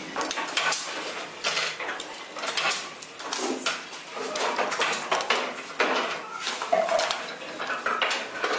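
Irregular clatter and clicks of a coil-winding former's plates being handled, several knocks a second, as wound copper coils are worked off the former.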